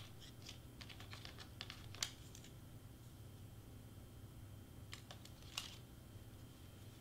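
Faint clicks and rustles of cut cardstock pieces being sorted by hand in a clear plastic box. There is a sharper tick about two seconds in and two more a few seconds later.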